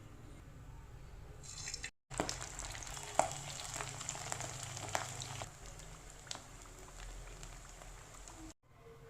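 Samosa twisters deep-frying in hot oil: a steady sizzle with scattered sharp crackles. It is broken by two brief drop-outs to silence, about two seconds in and near the end.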